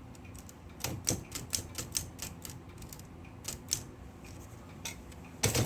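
Vintage Smith Corona manual typewriter's mechanism clicking and clacking as it is worked by hand: a run of irregular sharp clicks over a few seconds.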